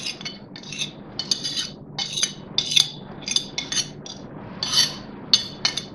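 Metal spoon scraping and clinking against a ceramic plate in a run of short, irregular strokes, about two or three a second, pushing chopped onion, green chilli and coriander off it into a bowl.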